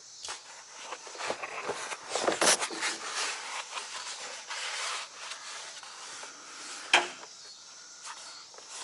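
Hands rummaging and scraping around while searching for loose nuts, with scattered sharp clicks; the loudest click comes about seven seconds in.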